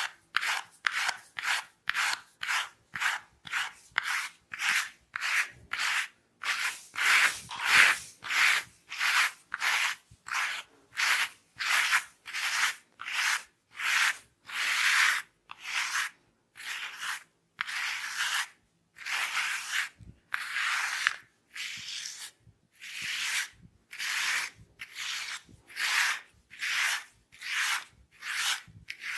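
Hair and scalp being rubbed in a head massage: a steady run of rhythmic, hissy strokes about two a second, with a few longer, slower strokes here and there.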